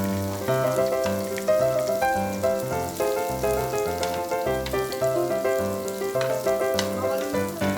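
Background music with a melody over a pulsing bass line, with the sizzle of pork frying on a grill underneath.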